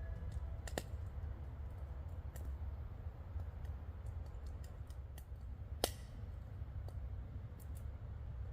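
Quiet night woods: a steady low rumble with scattered faint clicks and small snaps, and one sharper snap about six seconds in.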